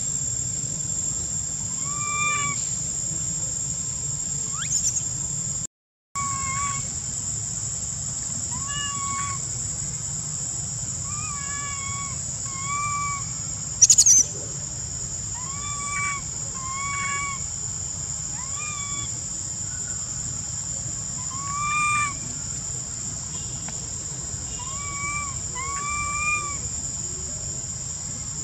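Baby long-tailed macaque crying for its mother with short, arched coo calls, one every second or two, over a steady high drone of insects. The sound cuts out briefly about six seconds in, and a sharp click about fourteen seconds in is the loudest moment.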